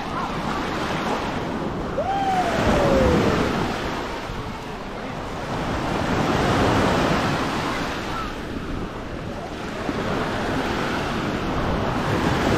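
Small waves breaking and washing up a sandy shore, the surf swelling and fading every few seconds, with wind on the microphone. About two seconds in, a person's voice calls out once in a falling tone.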